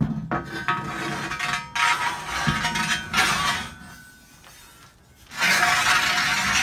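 Metal rolling and scraping on steel with a ringing note, as the welding cart's wheels run along its steel angle-iron track. It comes in two loud runs with a quieter pause between them.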